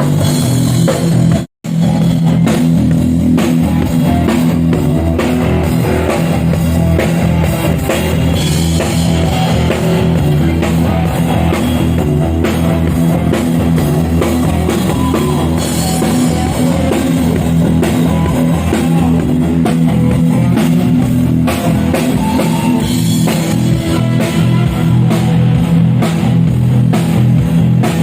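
Rock band playing guitar and drum kit at a sound check, loud and continuous, with a brief drop to silence about a second and a half in.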